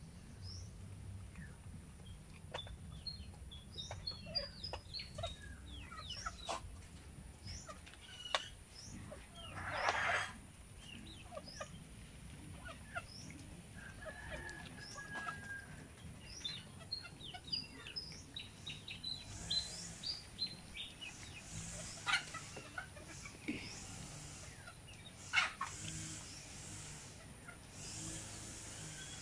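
Rural yard ambience: many short bird chirps and calls, with chickens clucking, scattered through the whole stretch. Occasional sharp clicks and knocks, and a brief noisy rush about ten seconds in.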